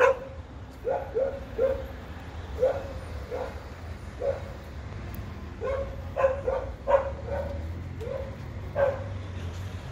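A dog barking: over a dozen short, sharp barks in irregular clusters, over a steady low hum.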